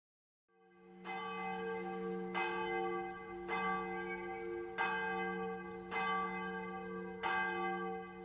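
A large bell tolling, struck six times about a second and a quarter apart, each stroke ringing on over a steady low hum. It fades in during the first second.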